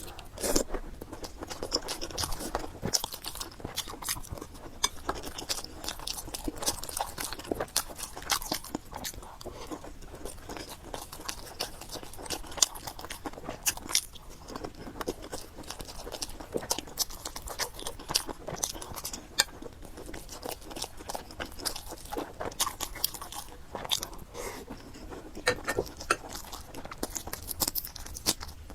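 A person chewing and biting spicy fried noodles with pork: a dense, irregular run of small mouth clicks and crunches.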